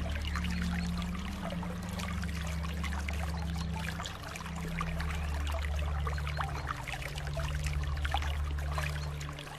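Water trickling and splashing, a dense patter of small drops over a steady low rumble.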